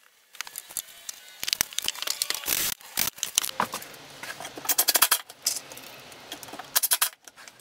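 Hand-work noises at a woodworking bench: scattered sharp clicks and short scraping, rustling sounds in a few brief clusters, with no power tool running.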